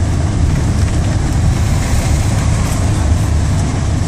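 Steady noise inside a moving car's cabin: a low rumble of engine and tyres on the road, with an even hiss over it.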